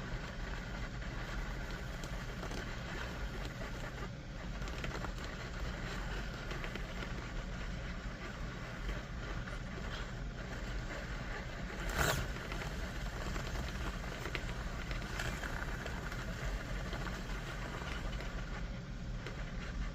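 Small 1/18-scale RC rock crawler's electric motor and gearing whirring steadily as it crawls over an obstacle line, with a steady low hum underneath and one sharp knock about twelve seconds in.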